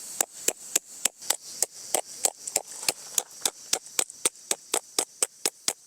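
A tent peg being hammered into the ground: a long run of quick, even strikes, about four a second.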